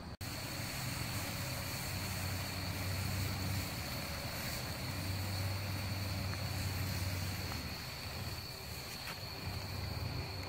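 Night insects calling in a steady high-pitched chorus, over a low rumble that swells and fades, with a few faint pops from the campfire.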